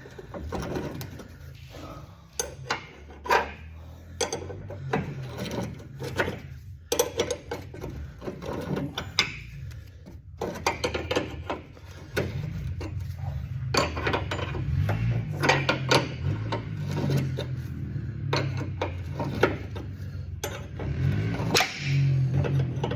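Irregular metallic clinks and knocks of hand tools working the bolt welded onto the stripped tailgate hinge screw, as the screw starts to come loose. A low steady hum sits under the knocks in the second half.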